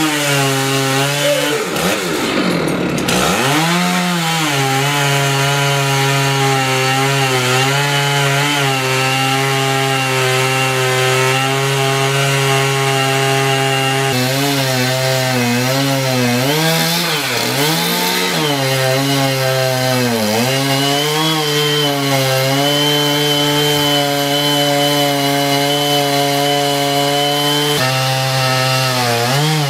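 Gasoline chainsaw with a long bar cutting through a large tree trunk, its engine running near full throttle. The pitch drops and recovers several times as the chain loads up in the cut.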